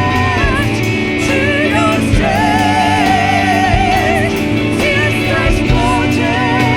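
Live worship band music: singers hold long, wavering notes over sustained chords, with drums keeping time.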